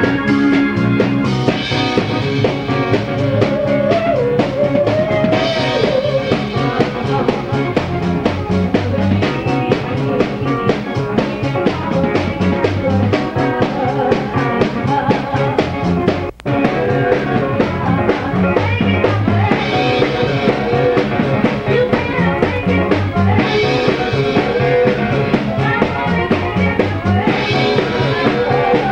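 Rock band music with drum kit and guitar, steady and loud; it drops out for a split second about sixteen seconds in.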